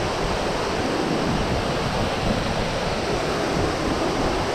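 Waterfall pouring down a deep shaft, a steady rush of falling water, with wind buffeting the microphone.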